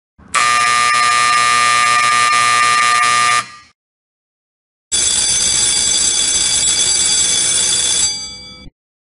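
An electronic horn sounds a steady buzz for about three seconds and stops. After a short pause, a SUNS electric alarm bell rings for about three seconds and trails off as it stops. These are break-time signals triggered by a programmable timer.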